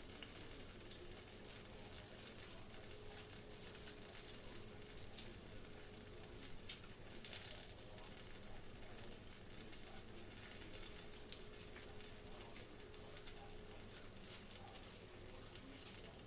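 Cherry fried pies frying in hot grease in a pan: a steady sizzle with crackling pops, with a few louder spurts of crackle about seven and eleven seconds in.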